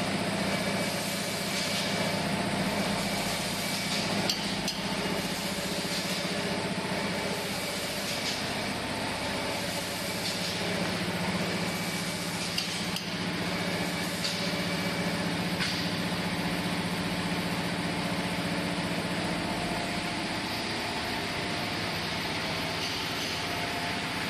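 Automatic paint-spraying machine for cabinet doors running: a steady mechanical hum and hiss, with light clicks or knocks every few seconds.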